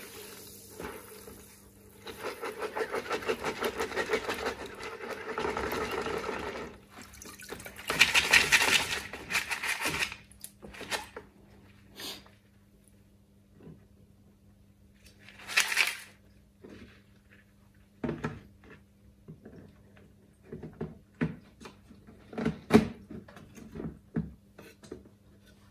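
Aquarium filter media being rinsed with water: a long spell of rapidly pulsing splashing, then a louder gush of water about eight seconds in and a shorter one later. Scattered knocks fall in between.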